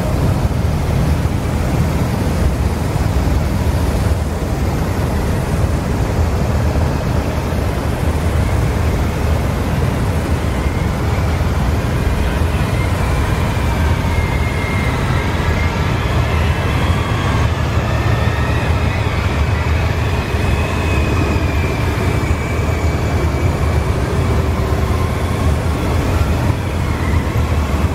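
A long column of police motorcycles riding slowly past, their engines making a steady low rumble, with faint high wavering tones joining in from about ten seconds in.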